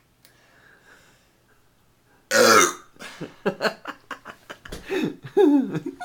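A man belching after chugging a can of carbonated ginger ale. A loud, harsh burp comes about two seconds in, then a string of shorter burps, the last ones sliding down in pitch.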